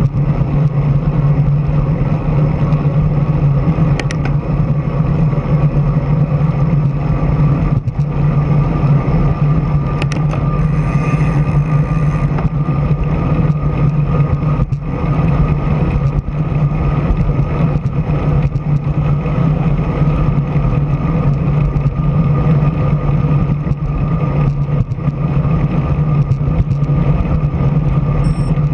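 Steady rushing wind and road noise on a bike-mounted action camera's microphone while riding a road bike at speed, a loud low rumble with a faint steady whine above it.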